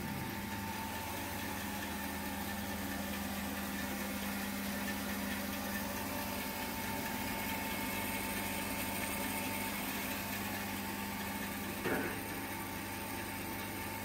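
Bandsaw running without cutting: a steady electric motor hum. A single short knock about twelve seconds in.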